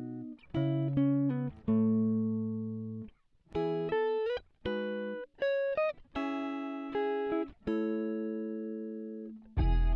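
Background music of plucked, guitar-like notes and chords, each struck and left to ring and fade, with no singing. Just before the end a fuller, louder section with deep bass comes in.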